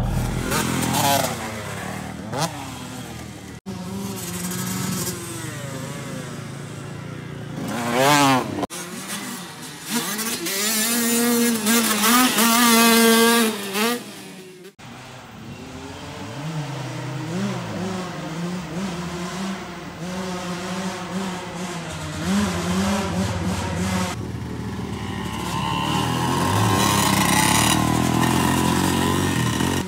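Kawasaki KX125 two-stroke dirt bike engine revving up and falling off as it is ridden, heard in several short clips cut together. The pitch climbs and drops with throttle and gear changes, and it is loudest a little past the middle.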